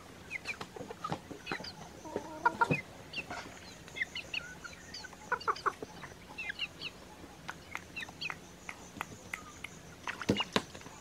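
Chickens clucking in short, scattered calls, with a few sharp clicks about ten seconds in.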